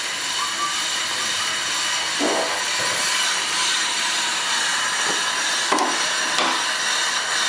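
Steady hiss of shop noise, with a few short scraping sounds and a sharp knock about six seconds in, as the steel column of a two-post car lift is shifted into position on the concrete floor.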